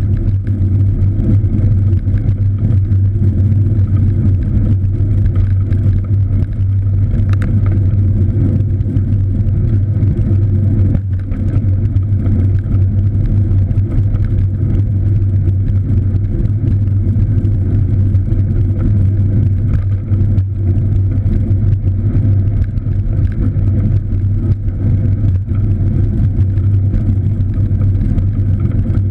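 Steady, loud low rumble of riding a cross bike, the wind and road noise picked up by the camera while in motion.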